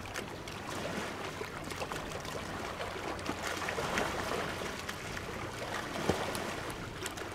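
Sea water lapping and splashing, with short irregular splashes and one sharper splash about six seconds in, over a faint low steady hum.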